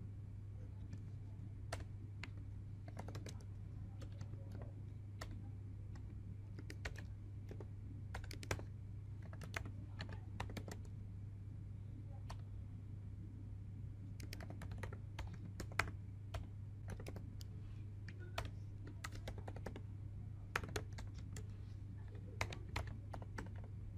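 Typing on a computer keyboard: irregular keystrokes in short runs with pauses, over a steady low hum.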